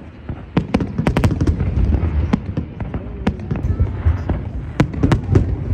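Fireworks going off: a dense, irregular run of sharp cracks and bangs over a steady low rumble.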